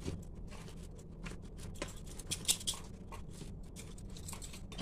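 Flat metal spatula scraping and tapping on a stainless-steel plate as it presses and smooths a stiff, sticky mixture: a run of irregular short scrapes and light clicks.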